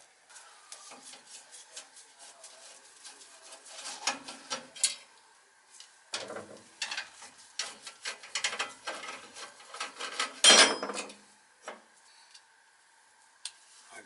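Hands working inside a gas furnace's burner compartment while swapping its igniter: irregular clicks, scrapes and light metal clatter, with one louder rattle about ten and a half seconds in.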